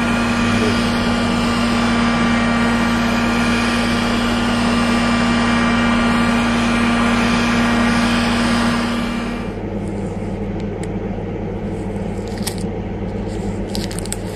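Electric heat gun running with a steady whine and blowing hiss as it is passed along the edge of the mirror glass to melt the adhesive. It cuts off about two-thirds of the way through, leaving a low hum and a few light clicks.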